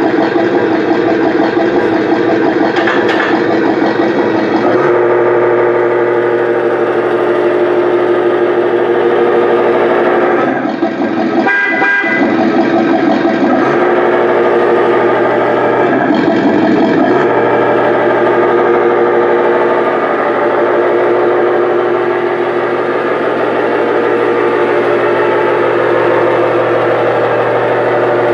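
Small electric drive motor of a battery-operated RC toy car whirring steadily, dropping out briefly twice, about eleven and sixteen seconds in.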